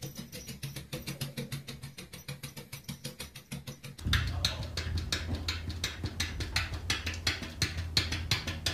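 Background music with a quick, steady percussive beat. About four seconds in it gets louder and a deep bass note comes in.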